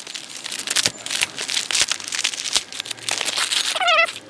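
Brown kraft packing paper crinkling and tearing as it is unwrapped and pulled off parts, in irregular rustles and crackles. A short wavering pitched sound comes near the end.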